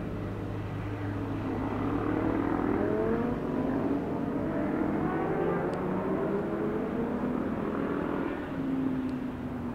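Motorcycle engines accelerating along a winding road, their pitch climbing and dropping back again and again as they change gear, with more than one engine heard at once.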